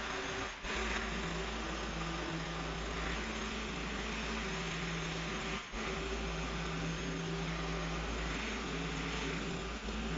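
Pole hedge trimmer running steadily as it cuts into a hedge, its motor note wavering slightly, with two brief dips in sound, about half a second in and near six seconds in.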